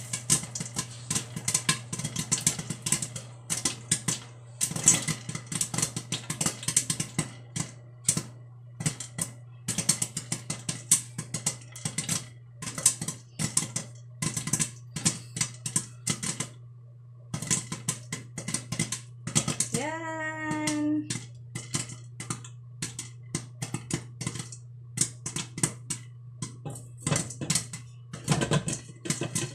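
Popcorn kernels popping inside a covered stainless-steel pot with a glass lid: a dense, irregular patter of sharp pops over a steady low hum. About twenty seconds in, a short voice-like tone rises and then holds.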